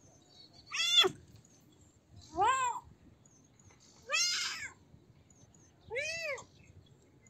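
A kitten meowing four times, one meow every second and a half to two seconds. Each short meow rises and then falls in pitch.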